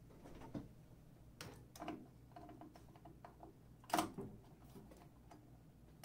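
Faint clicks and taps of a small plug-in relay being handled and fitted back into a fire alarm control panel, with one sharper click about four seconds in.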